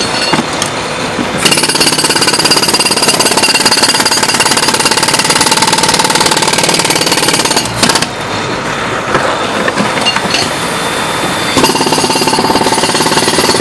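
Pneumatic jackhammer breaking up a concrete sidewalk slab: rapid, continuous hammering that starts about a second and a half in, with a brief break around the middle.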